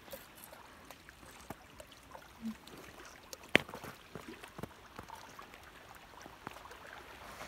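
Faint lapping water with scattered small clicks and knocks, one sharp click about three and a half seconds in.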